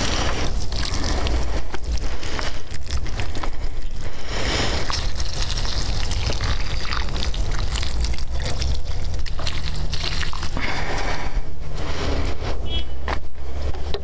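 Wind buffeting the phone's microphone, a steady low rumble with a rushing hiss over it.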